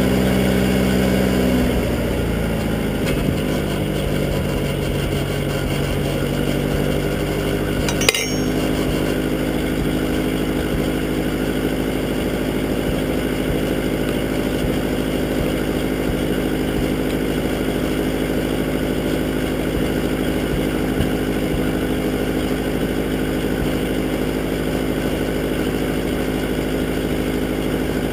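Massey Ferguson 202 Workbull backhoe tractor's engine running steadily at idle, its speed dropping a little about two seconds in. A single sharp metallic clank about eight seconds in.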